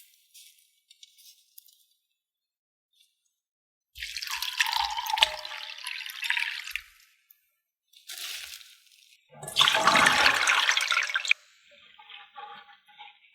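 Water running and splashing in two main spells, a few seconds each, with a short splash between them.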